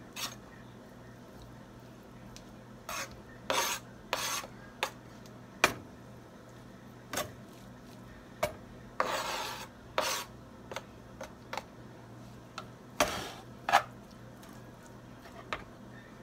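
Knife blade scraping cooked beef pieces off a plastic cutting board into a skillet of fried rice: irregular short scrapes and clicks, with one longer scrape about nine seconds in.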